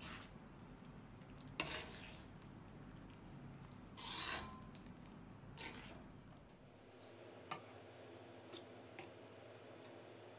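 A metal ladle stirring and scraping through a wok of thick coconut-milk soup, faint, with a longer scrape about four seconds in. Near the end come a few light clinks of the ladle against the pan.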